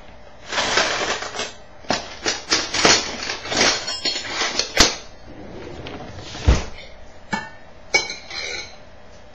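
A metal measuring cup and spatula scraping and clinking against a mixing bowl while scooping cake batter: a run of short scrapes and sharp clinks, with a dull knock a little past the middle.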